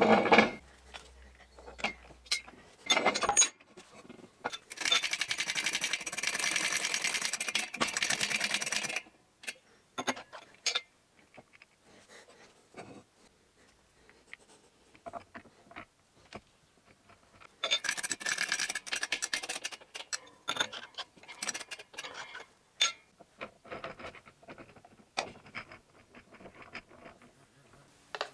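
Steel gears and metal parts clinking and knocking as they are handled and fitted into an aluminium gearbox casing, with two stretches of steady mechanical rattling lasting a few seconds each, one early and one past the middle.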